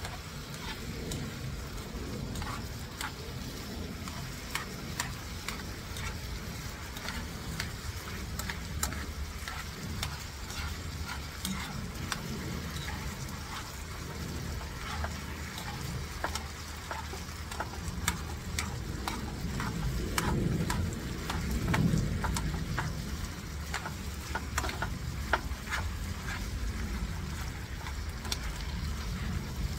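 Chicken tocino sizzling in a frying pan while metal tongs and a spoon stir it, with frequent sharp clicks of metal against the pan. A louder low rumble swells around twenty seconds in.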